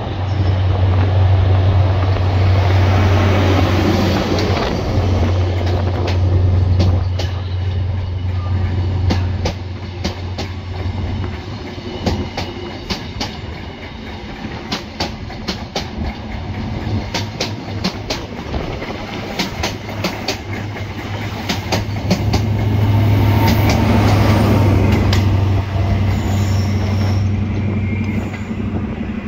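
High Speed Train passing at low speed: the diesel engine of a Class 43 power car hums loudly. The Mk3 coaches follow with a run of wheel clicks over rail joints and points. Then the second power car's engine hum returns.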